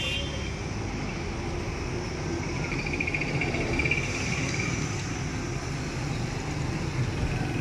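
Steady road-traffic rumble of passing cars, with a high, rapidly pulsing trill from about two to four and a half seconds in.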